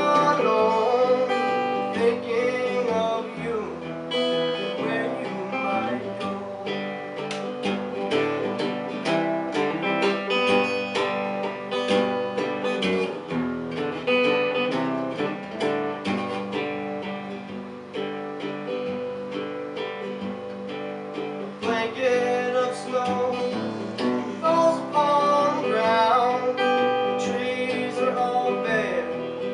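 Solo acoustic guitar strummed and picked in a steady song, with a man singing over it at the start and again from about two-thirds of the way through.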